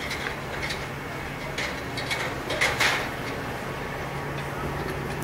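Crane engine running steadily while it holds a cabin cruiser in lifting slings, with a few short clicks and knocks from about one and a half to three seconds in, the loudest near three seconds.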